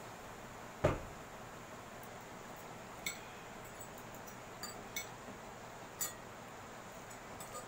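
Metal forks clinking against ceramic plates a handful of times while eating noodles, after a single louder thump about a second in.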